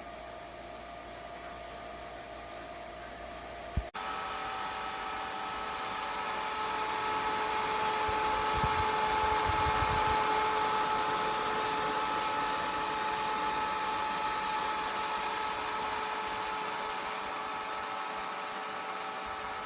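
A small electric fan motor running with a steady whirr and a thin whine. About four seconds in, a click and an abrupt change bring a louder, more whining whirr that swells and then holds.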